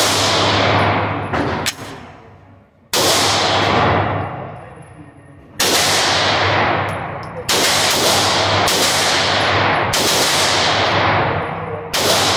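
Glock 17 9mm pistol fired slowly at an indoor range: about seven shots a second or two apart, each ringing on in the range's echo, with two shorter sharp cracks about a second and a half in. The modified pistol is cycling on every shot.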